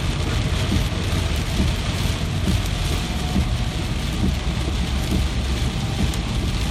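Steady rainfall, an even hiss of drops with a deep low rumble underneath.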